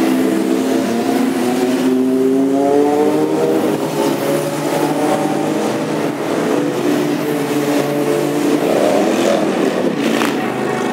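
Motorcycle engines going by one after another, the pitch of one rising as it accelerates past in the first few seconds; more motorcycles pass near the end.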